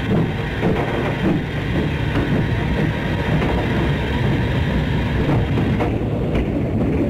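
ÖBB class 399 narrow-gauge steam locomotive 399.01 working a train: a loud, continuous rumble with irregular exhaust beats. The upper hiss falls away about six seconds in.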